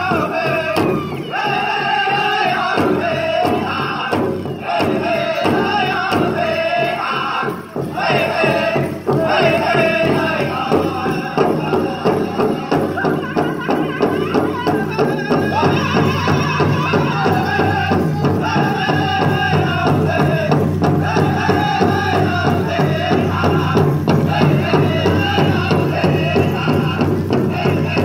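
Powwow drum group singing a chicken dance song in high voices over a steady, driving beat on the big drum. The low drum beat grows heavier about halfway through.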